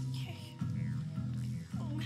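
Background film music: a low, sustained bass line whose notes change about every half second.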